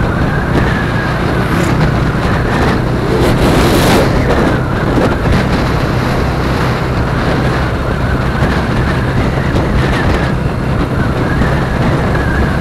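Motorcycle engine running steadily while riding, with road and wind noise rushing over the camera microphone; a louder rush swells briefly about three to four seconds in.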